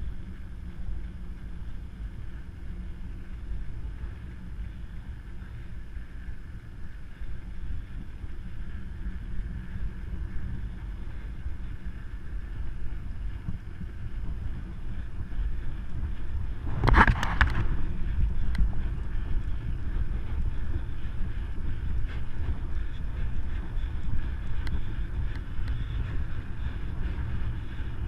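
Wind rushing over the microphone and the low rumble of a mountain bike rolling along the road. About two-thirds of the way through there is a brief loud clatter.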